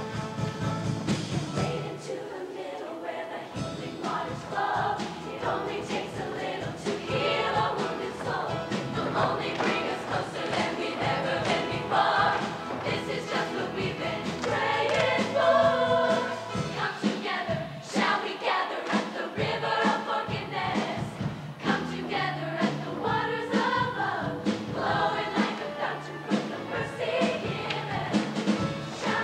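Show choir singing together over a musical backing.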